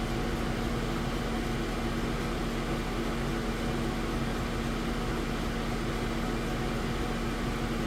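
Steady whirring hum of a CO2 laser engraver setup's fans and pumps running idle, with a constant low tone under an even rush of air.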